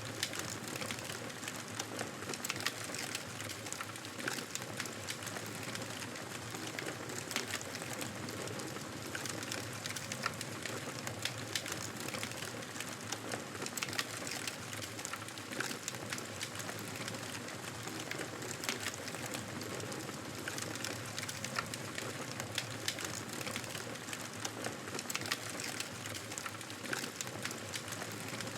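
Wood fire in a fireplace burning with steady, irregular crackling and small pops over a soft hiss.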